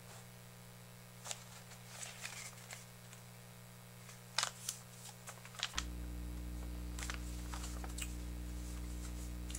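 Scattered light clicks and rustles of someone handling a bottle and a slip of paper. Under them runs a steady electrical hum that gets louder about six seconds in.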